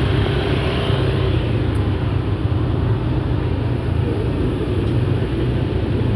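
A motor vehicle's engine running steadily at close range: a low, even hum with street noise over it.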